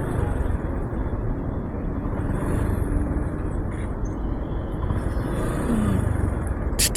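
Steady low rumble of road traffic and vehicle noise, with wind on the microphone, with a few short bursts of hiss right at the end.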